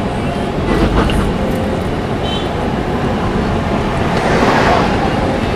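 Steady road and wind rumble of a moving car, heard from inside the cabin with a window open. The noise swells a little about four seconds in.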